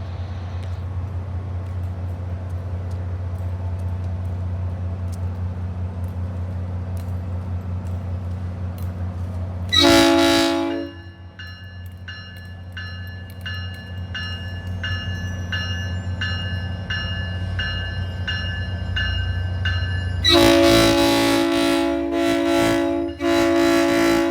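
SunRail commuter train's diesel locomotive idling with a steady low hum. About ten seconds in it gives a short horn blast, then a bell rings repeatedly. From about twenty seconds a long, loud horn blast sounds, broken once briefly.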